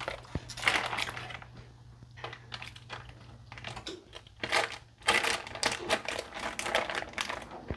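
A plastic bag crinkling and a metal spoon clicking as soft chunks of cream cheese are scraped out of the bag into a pan of cream sauce: irregular quick clicks and rustles, busier in the second half.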